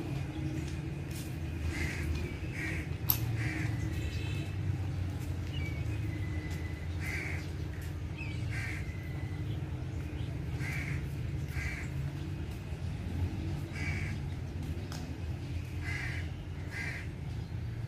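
Crows cawing again and again, often two or three caws in quick succession, over a low steady rumble, with one sharp click about three seconds in.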